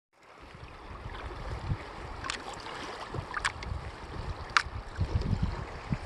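Wind buffeting the microphone in a steady low rumble over choppy river water lapping, with three sharp water splashes at the kayak.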